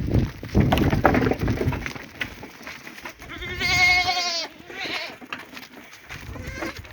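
A young goat bleats once, a wavering call lasting about a second, a little past the middle. Earlier there is noisy shuffling and knocking among the goats.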